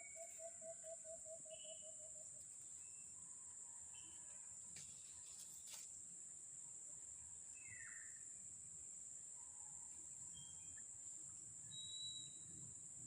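Faint outdoor ambience: a steady high insect drone with scattered short bird chirps, and a quick run of about ten even low notes in the first two seconds.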